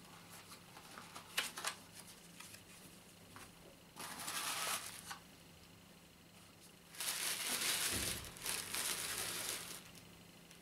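Crumpled tissue paper crinkling and rustling as a wool ball is taken from a small cardboard box and unwrapped: a few light clicks, then a short rustle about four seconds in and a longer one of about three seconds near the end.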